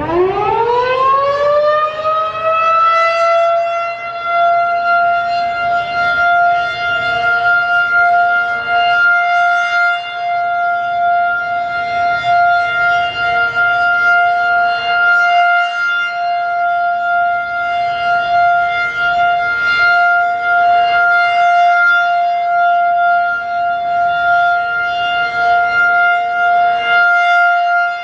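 Federal Signal 2001-DC rotating outdoor warning siren winding up, its pitch climbing fast over the first two seconds, then sounding a steady full-alert tone as its horn spins at 10 RPM. A fainter, lower steady tone from a more distant siren runs underneath.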